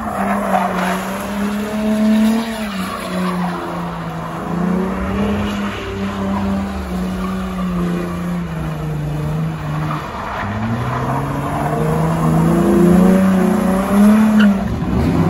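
A car doing donuts in its own tyre smoke, tyres squealing and skidding on the asphalt. The engine is held at high revs, its pitch sagging in the middle and climbing again near the end.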